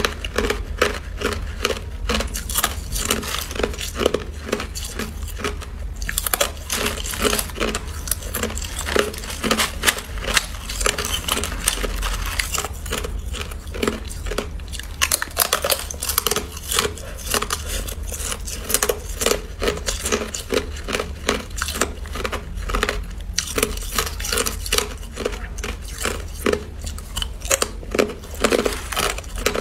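Thin sheets of hard clear ice being bitten and crunched in the mouth: a dense run of sharp, crackling crunches with a few brief lulls.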